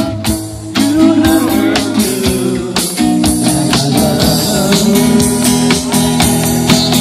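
Live band jamming: guitar over a steady percussive beat.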